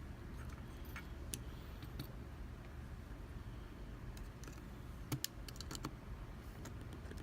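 Small, sharp metal clicks and taps of a euro cylinder lock being worked apart by hand as the plug is eased out, scattered and irregular, with a louder double click about five seconds in, over a steady low hum.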